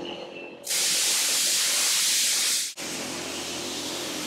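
A loud, steady hiss lasts about two seconds, starting and stopping abruptly, then gives way to a quieter steady noise with a low hum.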